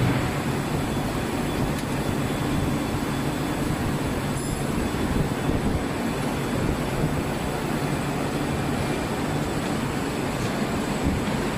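Steady rumble of factory machinery running on a rotational-moulding shop floor, unbroken throughout, with a low hum and a thin high whine under it.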